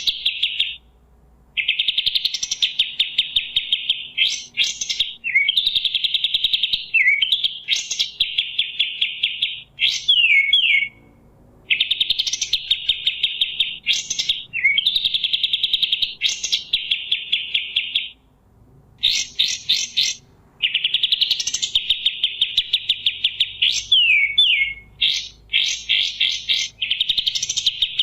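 Kapas tembak songbird singing loudly: long, rapid, rattling trilled phrases of one to three seconds, interspersed with quick, sharp down-slurred whistled notes, repeated with short pauses between.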